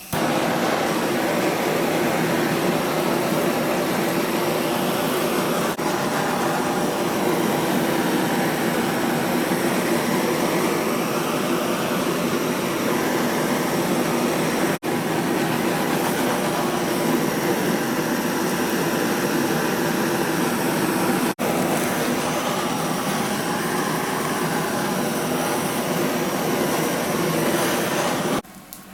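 Hand-held kitchen blowtorch burning with a loud, steady hiss as its flame browns melted cheese. It breaks off for an instant three times and shuts off just before the end.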